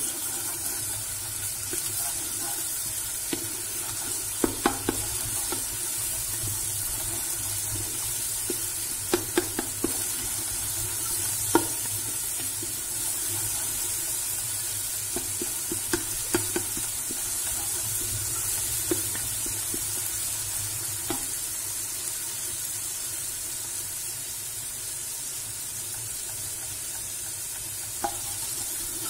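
Onions and tomato paste sizzling in butter and oil in a pressure cooker while being stirred with a wooden spoon, which knocks against the pot a few times.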